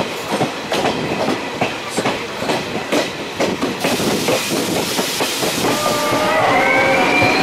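Passenger train running on the rails, its wheels clicking rapidly over rail joints. From about six seconds in, as the train enters a tunnel, the wheels squeal with several thin, slightly rising tones.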